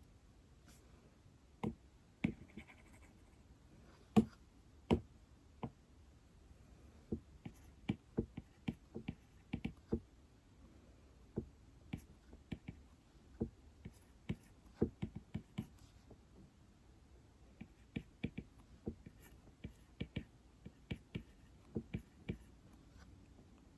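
Light taps on an iPad, irregular and in short runs with pauses between them.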